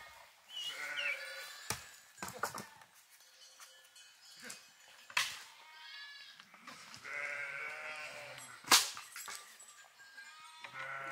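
Sheep or goats bleating several times, with a few sharp clatters in between; the loudest clatter comes near the end.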